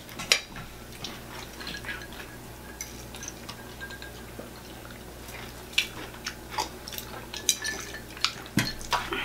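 Close-up eating sounds of crispy fried chicken: scattered sharp clicks and small crunches of chewing, with light clinks of a fork on a plate and of ice in a glass of iced tea. A faint steady low hum runs underneath.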